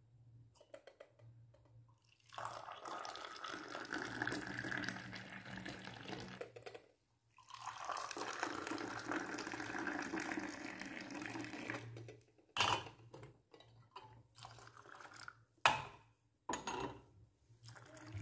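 Moroccan tea poured from a stainless-steel teapot into tea glasses in two long pours of about four seconds each, raising foam in the glass. Then several short, sharp knocks and clinks near the end.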